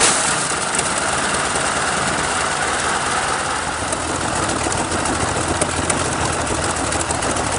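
A 46-litre BMW V12 aircraft engine in the Brutus special running steadily with a loud, rough, open-exhaust sound.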